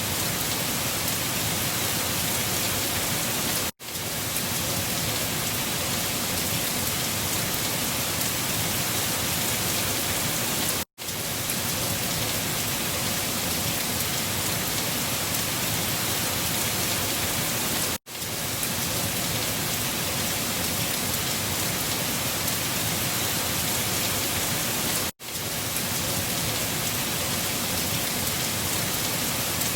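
Steady wind-storm noise, an even rushing hiss strong in the high end. It drops out for a split second four times, about every seven seconds, each time returning at once.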